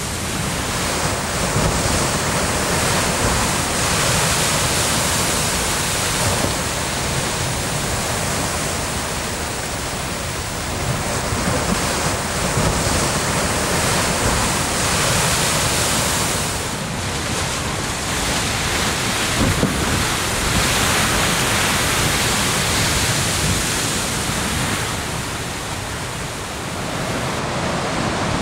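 Heavy Pacific surf breaking against basalt rocks: a continuous rush of water and spray that swells and eases every few seconds.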